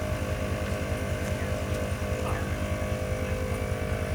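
A 4x4's V8 turbo-diesel engine running steadily with an even low throb.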